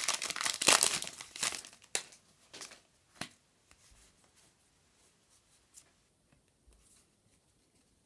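Pokémon card booster pack's foil wrapper torn open and crinkling for about two seconds, followed by a few faint clicks and rustles as the cards are pulled out and handled.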